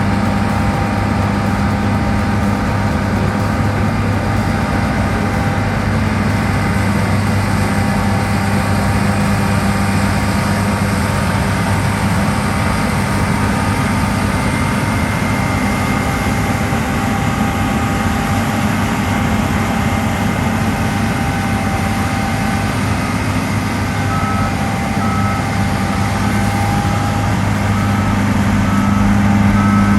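Diesel engine of heavy harvest machinery running steadily under load. From about 24 seconds in, a reversing alarm beeps at about one beep a second.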